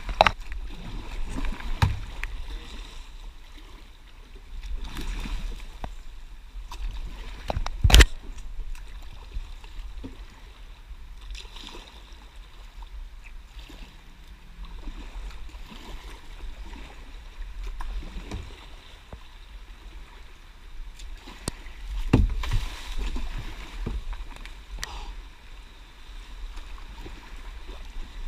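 Kayak paddle strokes splashing in fast-flowing floodwater, with the rush of the current. A single sharp knock about eight seconds in.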